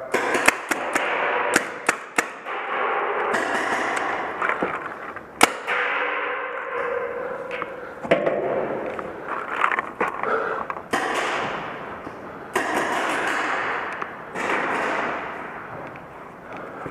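Paintball markers firing: sharp pops, singly and in quick runs, each trailing off in a long echo in a large hall.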